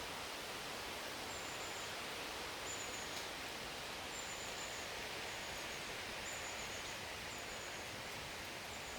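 Steady outdoor hiss of natural ambience, with a small bird's thin, high call repeated at an even pace, about once every second and a quarter.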